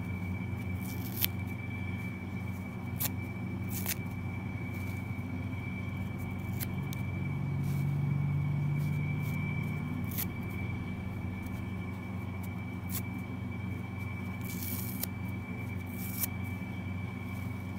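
Kitchen sponges being torn apart by hand, the foam ripping and crackling in scattered short sharp bursts. Underneath runs a steady low hum with a thin steady high tone, swelling briefly about halfway through.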